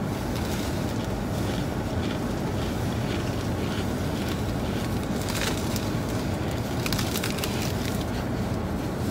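Steady cabin noise inside a parked car with its engine idling: a low rumble under an even airy hiss.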